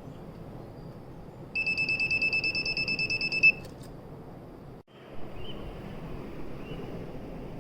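An electronic buzzer gives a high, rapidly pulsed beep, about ten pulses a second, for roughly two seconds, then stops with a sharp click.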